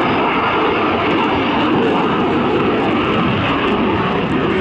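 Loud, steady jet noise from an F-22 Raptor's two Pratt & Whitney F119 engines as the fighter flies its display overhead.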